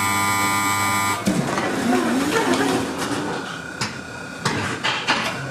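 Tatra T4D tram's door-closing warning buzzer sounding steadily for about a second. It is followed by a few sharp clunks as the folding doors shut, a little under four to five seconds in.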